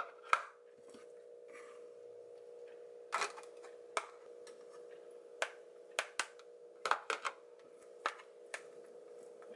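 Silicone spatula scraping and tapping cooked brown rice out of a plastic food container and into others, giving a string of irregular sharp plastic clicks and knocks over a steady hum.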